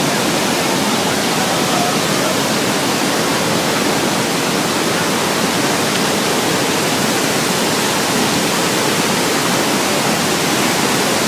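Waterfall's steady, loud rush of falling water, an unbroken roar-like hiss spread across low and high pitches alike.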